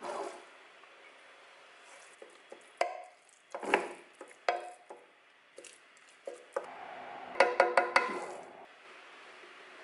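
Wooden spatula stirring and scraping shredded fish in a bread machine's nonstick loaf pan, with irregular knocks against the pan and a quick run of taps near the end, as the fish floss is broken up while it cooks dry.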